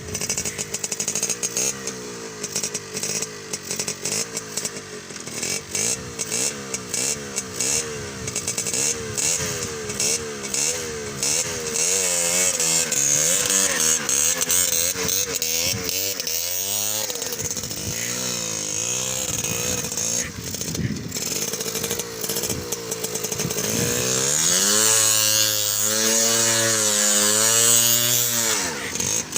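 Yamaha Alfa two-stroke motorcycle engine revving up and down repeatedly while it is being tuned, its pitch swinging with the throttle and held higher for a few seconds near the end.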